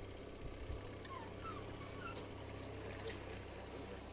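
Boat engine idling steadily at trolling speed, a low even hum, with a few faint short chirps in the middle.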